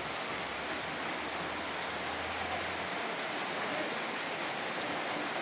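Steady, even hiss of rain falling, with a faint low hum underneath that stops about three seconds in.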